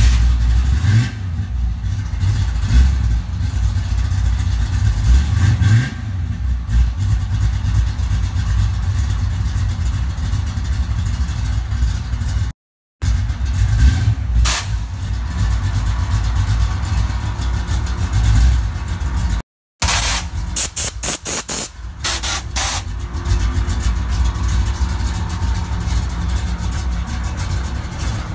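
Lowered Chevy pickup's engine running with a deep exhaust note, revved up briefly a couple of times. About two-thirds of the way through comes a quick run of sharp clicks or pops.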